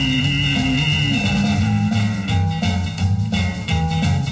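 Rockabilly record playing on a turntable: guitar over a rhythmic bass line, with a held high note in the first second and a half.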